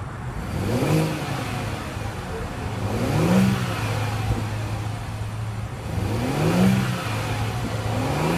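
2014 Audi Q7 3.0T's supercharged V6 heard at the exhaust tips, idling steadily and revved briefly three times, each rev rising and falling back to idle, with a fourth rev starting at the end.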